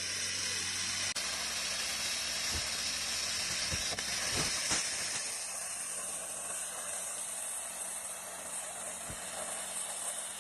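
Air plasma cutter torch cutting metal plate, giving off a steady hiss of arc and compressed air.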